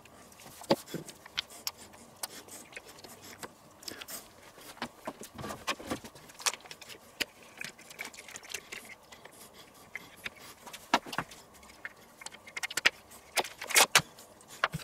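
Mustard being squeezed out of a plastic tube: a scatter of small clicks and crackles from the crumpling tube. A few louder clicks near the end come as the tube is worked through a plastic tube squeezer.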